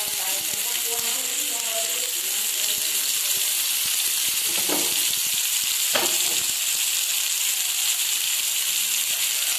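Seer fish (vanjaram) steaks in masala coating shallow-frying in oil on a tawa, sizzling steadily.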